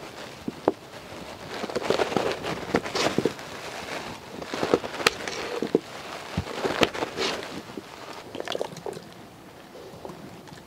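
Knife chopping elephant foot yam into chunks on a wooden cutting board: irregular knocks and clicks as the blade cuts through the firm flesh and strikes the board.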